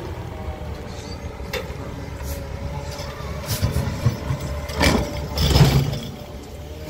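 Peterbilt 520 garbage truck's engine running at idle, a steady low rumble, with several sharp knocks and a louder burst of noise about five seconds in.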